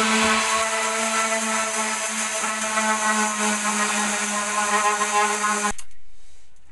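Electric orbital sander running steadily as it sands a wooden skateboard deck, a constant motor hum with a rushing sanding noise; it stops abruptly about a second before the end.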